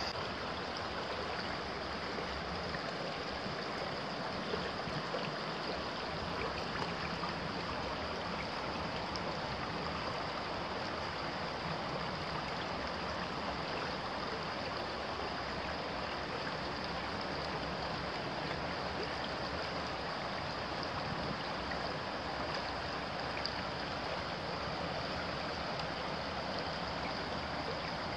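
Shallow stream rippling and babbling over stones in a steady rush, with a thin steady high tone above it.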